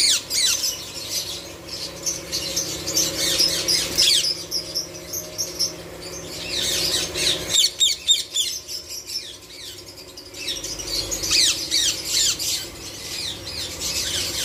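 Caged Indian ringneck parakeets chattering and screeching: a dense run of short, shrill, downward-sliding calls that thins briefly about ten seconds in.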